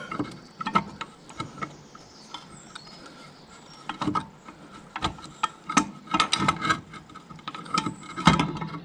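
Irregular metallic clicks and knocks of steel brake-linkage parts being handled and worked into place on a tractor, some leaving a short ring.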